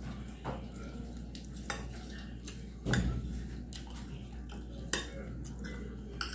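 Metal fork clinking and scraping against a glass bowl of rice, in a handful of separate sharp clicks, the loudest about three seconds in, over a low steady hum.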